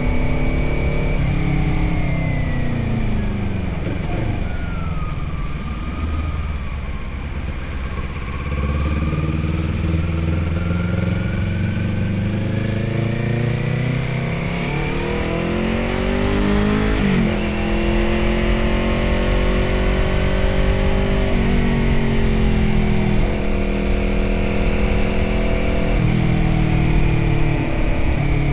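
Motorcycle engine heard from the rider's seat, slowing down and then pulling up through the gears: its pitch falls at first, climbs for several seconds, then drops and climbs again at each of several gear changes in the second half, over steady wind and road rumble.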